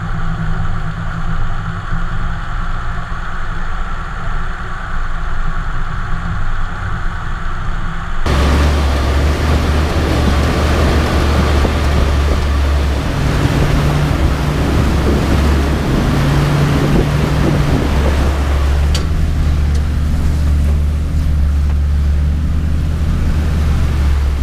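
A 4WD's engine running steadily as it drives through a flooded track. About eight seconds in the sound changes abruptly to a louder rush of water and wind noise over a deep engine drone as the vehicle pushes through the water.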